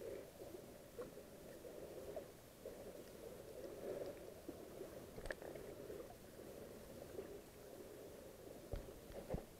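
Muffled underwater sound picked up by a camera in a waterproof housing while snorkeling: a faint, steady muffled noise with scattered small clicks and a few low thumps near the end.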